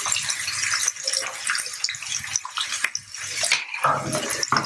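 Chopped onions, garlic and ginger frying in hot sunflower oil in a pan, sizzling and crackling steadily.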